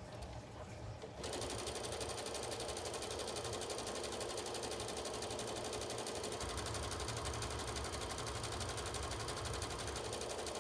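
Brother electric sewing machine starting up about a second in and then running steadily, stitching through fabric.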